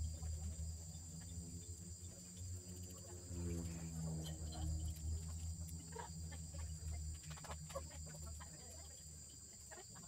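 Steady high-pitched drone of insects in the surrounding forest, with a low rumble underneath and scattered clicks and taps about six to eight seconds in.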